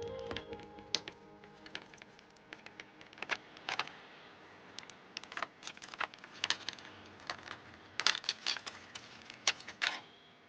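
Sharp, irregular clicks and taps of a doll's plastic packaging being handled and opened, some in quick clusters of two or three.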